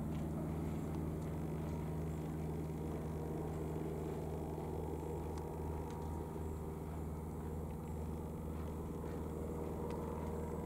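A steady, low engine drone that holds one pitch without rising or falling.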